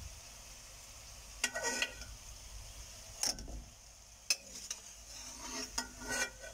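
Steel ladle clinking and scraping against a stainless steel pan four times as fried badusha are dropped into warm sugar syrup, over a faint steady hiss.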